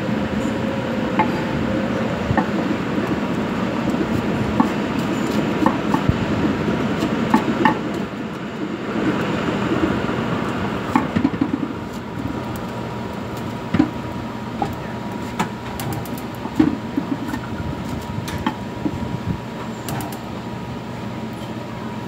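Pancakes frying in oil in two frying pans, a steady sizzle, with scattered light clicks and taps of a metal ladle and utensils against the pans.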